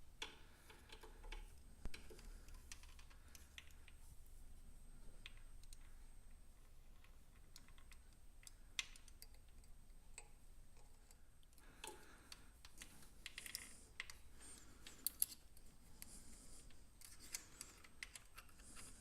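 Faint, irregular small clicks and light metallic taps of hand tools working on metal, with a few sharper clicks, over a low hum.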